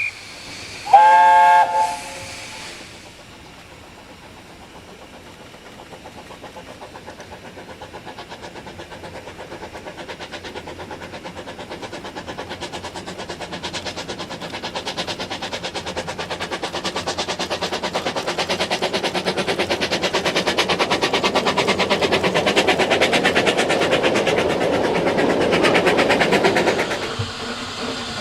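Steam locomotive whistle blown once, about a second long, then the locomotive's exhaust chuffing in an even rapid beat that grows steadily louder and stops suddenly near the end.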